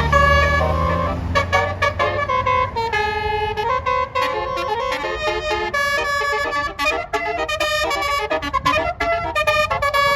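A bus's basuri musical horn playing a melody of buzzy, stepping notes. A bus engine rumbles underneath at first and fades about a second or two in.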